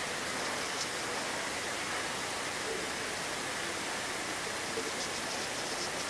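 Steady, even hiss of background noise, with a few faint short ticks about a second in and near the end.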